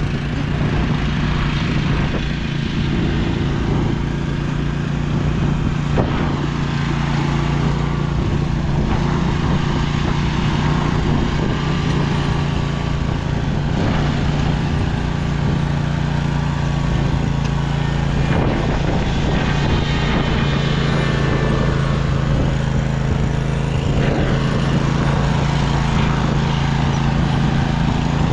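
Engine running steadily at a constant speed, with a few faint clicks of clatter.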